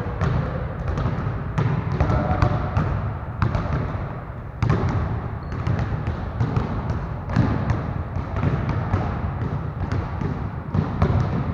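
Several basketballs being dribbled at once on a gym floor: many overlapping, irregular bounces.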